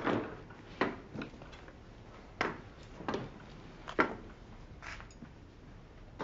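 Slow, uneven footsteps of a man walking with a crutch: about seven separate knocks on a hard floor at irregular intervals.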